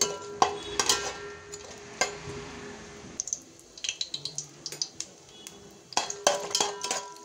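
Metal spatula scraping and clinking against the bottom of a large steel cooking pot as whole spices are stirred in hot oil, in a run of irregular clinks and knocks.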